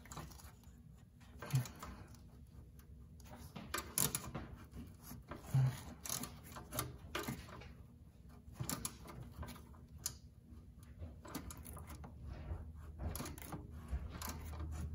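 Hand ratchet with a 10 mm socket clicking in short, irregular spells as an exhaust-manifold heat shield bolt is backed out, with light metal clinks between.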